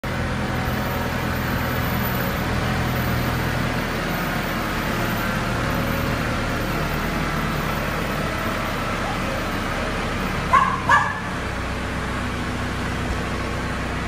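Compact tractor's engine running steadily as it drives, its note shifting a couple of times. A dog barks twice, close together, about ten and a half seconds in.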